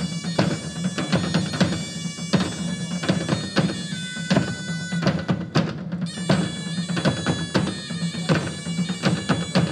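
Live instrumental folk music: a bagpipe plays a melody over its steady low drone while drums beat a regular rhythm.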